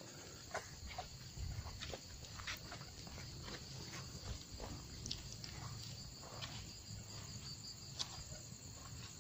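Irregular footsteps and rustling through grass, over a faint steady chirring of night insects.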